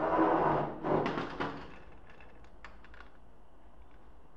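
Hands and tools working on an opened motorcycle cylinder head: rustling, scraping handling noise twice in the first second and a half, then a few faint, light metal clicks.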